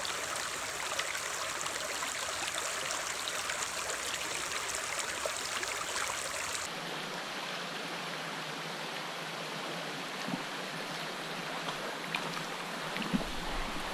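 A small rocky stream running over stones in a shallow riffle: a steady, even rush of water. About seven seconds in it changes abruptly to a duller, slightly quieter rush.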